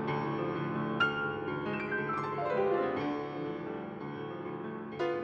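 Background piano music: slow chords struck and left to ring, fading away near the end.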